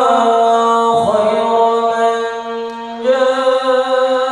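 Male vocal chanting of an Arabic sholawat through a PA system, with long sustained notes in Al-Banjari hadrah style. The pitch steps to a new note about a second in and again about three seconds in, with no drumming.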